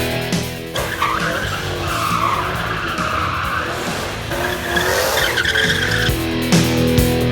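Ford Mustang's tires squealing in a drift, in two long wavering squeals, the second higher, over the car's engine revving. Rock music with guitar stops just before the squealing and comes back near the end.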